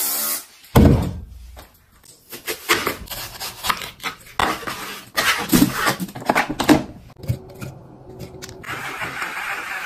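A heavy thump about a second in, then a knife slicing through watermelon and knocking on a plastic cutting board in a string of uneven crunching strokes. Near the end a steady hiss starts.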